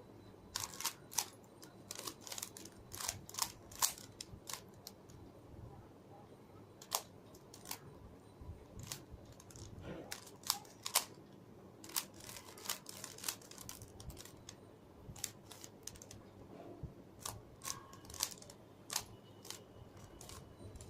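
Plastic Rubik's cube being turned by hand: irregular sharp clicks and clacks of the layers snapping round, coming in quick clusters with short pauses between.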